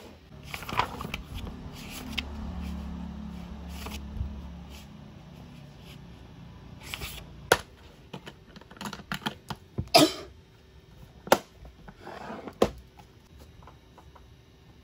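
Stationery handled on a desk as a workbook is set out and a pen is taken from a pencil case. A few seconds of rustling and sliding come first, then several sharp clicks and knocks from about halfway in.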